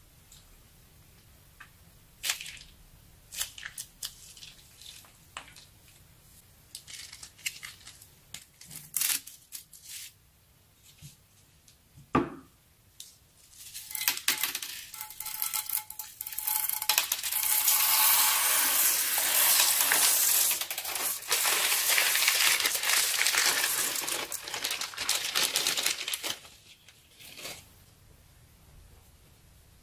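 Small beads pouring out of a plastic piping bag into a glass baking dish of coloured liquid. Scattered clicks and a sharp knock come first, then from about halfway through a dense, loud clattering rattle of beads for some ten seconds before it thins out.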